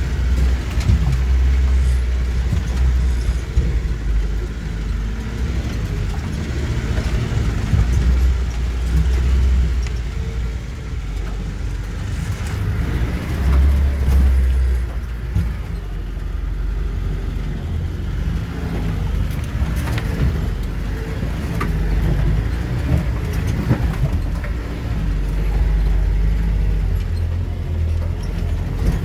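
Car engine running on an off-road drive, a low rumble that swells and eases every few seconds under changing load, with scattered knocks and rattles.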